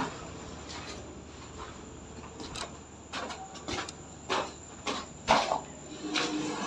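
Footsteps going down bare concrete stairs, a series of soft steps roughly twice a second starting about two and a half seconds in.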